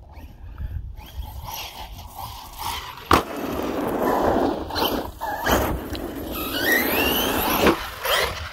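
Arrma Notorious 6S brushless RC monster truck driving hard over asphalt: a rough tyre rumble with a sharp knock about three seconds in, and the motor's whine rising as it accelerates later on.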